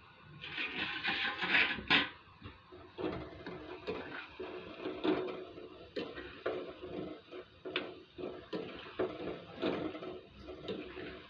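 Gulab jamun balls deep-frying in oil in a metal pan: the oil sizzles and bubbles, with a thin wooden stick turning the balls and knocking against the pan several times. The balls are being fried slowly over low heat so they brown without burning.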